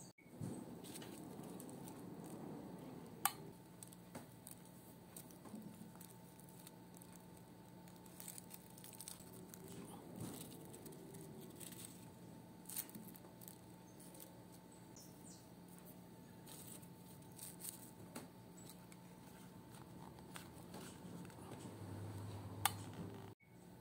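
Faint rustling and light scratching of coffee-filter paper flowers and jute twine being handled, with scattered small clicks, two sharper ones about three seconds in and near the end. A low steady hum runs underneath.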